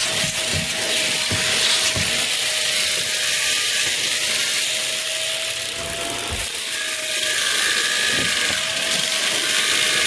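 Vacuum cleaner running with a hose and crevice tool pulling air along the carpet edge: a steady rushing hiss over a constant motor whine, with a few low knocks.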